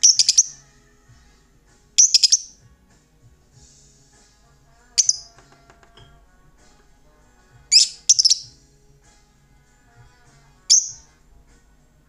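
Blue masked lovebird giving short, harsh, rapid chirping calls in six bursts a couple of seconds apart, two of them close together about eight seconds in. These are angry calls at a finger poking toward it.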